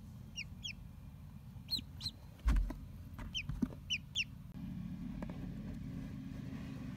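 Mallard ducklings peeping: short, high, downward-sliding peeps, mostly in pairs, through the first four seconds or so, with a single thump about two and a half seconds in. A steady low hum runs underneath.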